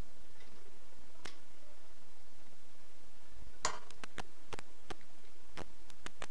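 Plastic spatula scraping butter off into a stainless steel mixing bowl and tapping against the rim of a plastic tub: a short scrape about three and a half seconds in, then a quick run of sharp ticks.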